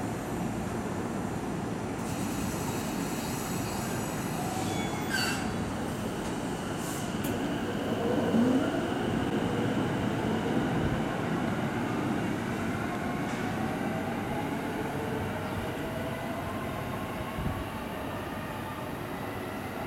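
JR East E233-1000 series Keihin-Tohoku Line electric train pulling out of the station: its traction motors whine in rising glides as it gathers speed over a steady run of wheel and rail noise. The noise is loudest about eight seconds in as the last car goes by, then eases as the train draws away.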